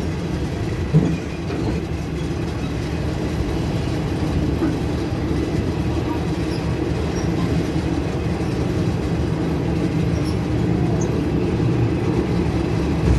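Passenger train running along the track, heard from aboard: a steady rumble of wheels on rails, with one sharp knock about a second in.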